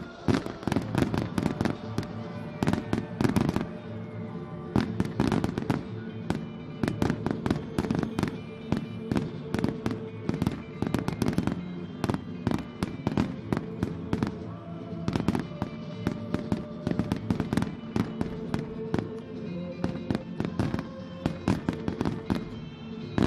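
Fireworks going off in quick, irregular bangs and crackles, several a second, over music playing.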